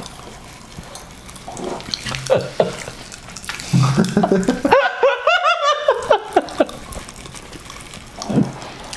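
Watermelon popping candy crackling and fizzing in mouths as a rapid scatter of tiny pops. There is a burst of laughter about four seconds in.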